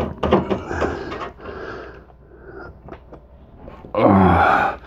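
Hands and a Phillips screwdriver working inside a steel PC case to free a hard drive: scattered clicks and knocks of metal parts, then a short, louder burst of sound about four seconds in.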